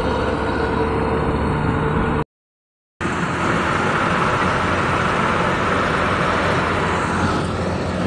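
Kubota DC-93 rice combine harvester running steadily, with a sudden dropout to dead silence for under a second about two seconds in before the machine noise resumes.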